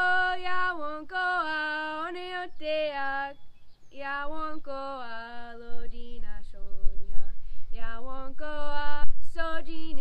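A woman singing without accompaniment: a slow melody of long held notes that step up and down in short phrases with brief breaks between them.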